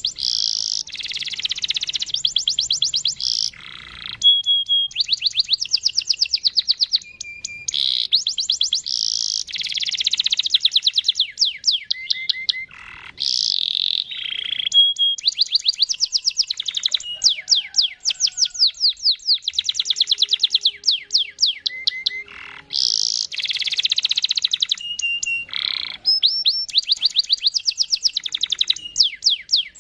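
Domestic canary singing a long rolling song, with fast trills of rapidly repeated 'cuit cuit' chirps and a few short held whistled notes, broken by brief pauses.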